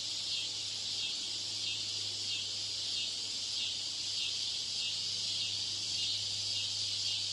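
Steady background noise mixed into a practice listening-test recording to imitate a poor exam-room environment. It is a high, even chirring hiss like insects, over a low steady hum.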